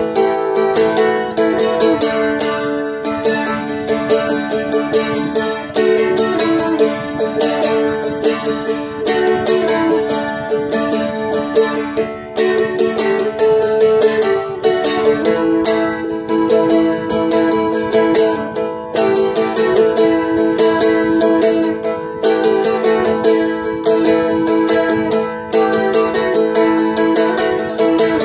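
Seagull Merlin M4, a four-string fretted dulcimer-type instrument, strummed continuously with a pick. A melody moves over drone strings that ring steadily underneath, on the chords D, A and G.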